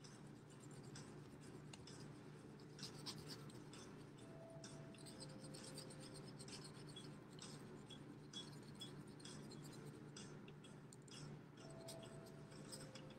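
Faint scratching of a felt-tip marker colouring on a piece of paper plate, in many short irregular strokes.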